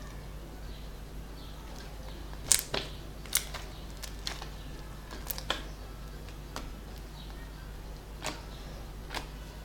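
Homemade slime being squeezed and stretched by hand, giving a dozen or so irregular sharp clicks and pops, the loudest two about two and a half and three and a half seconds in, over a steady low hum.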